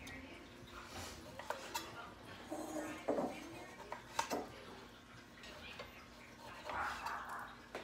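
Kitchen knife cutting the peel off an orange on a wooden cutting board, the blade clicking against the board several times, with a short scrape near the end.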